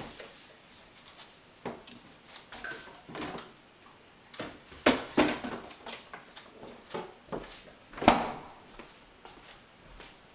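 Scattered knocks, clicks and clunks of things being handled and set down in a kitchen, at uneven intervals, with the loudest knock about eight seconds in.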